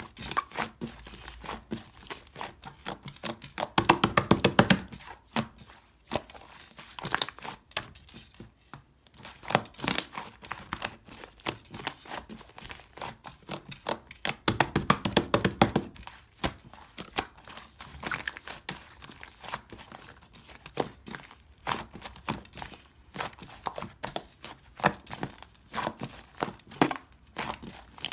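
Slime being squished and stretched by hand, giving many small crackling clicks and pops. There are two louder, denser stretches of crackling, at about four seconds and about fifteen seconds in.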